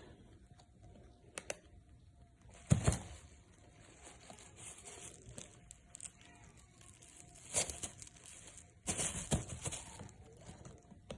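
Intermittent rustling and crinkling, with a few sharp cracks and louder bouts about three seconds in, near eight seconds and around nine to ten seconds.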